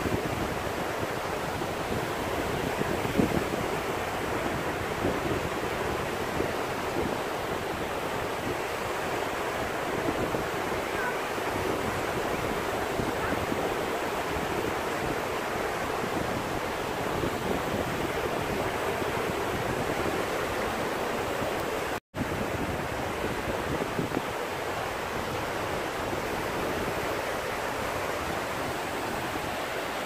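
Small sea waves breaking and washing over a shallow beach: a steady rush of surf. The sound cuts out for an instant about two-thirds of the way through.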